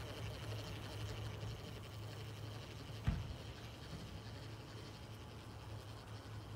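Quiet outdoor background with a steady low hum and one dull thump about three seconds in.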